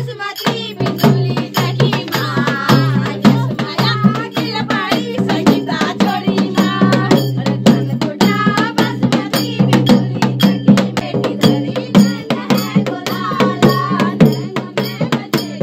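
Pahadi chanchari folk song at a bonfire circle dance: voices singing together over a fast, steady drum beat with a jingling rattle.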